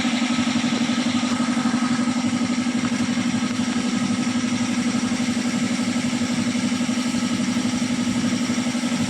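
Tata Vista car engine idling steadily with an even, fast pulse, running after its timing chain replacement.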